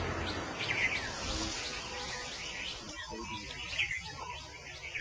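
Forest ambience: scattered short, falling bird chirps over a steady high-pitched drone of insects.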